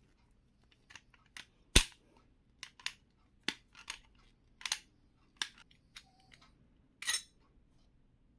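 Sharp metallic clicks and knocks of a spanner working the two nuts that hold the mixer grinder motor's aluminium housing halves together, coming irregularly about once or twice a second, with one heavier knock about two seconds in.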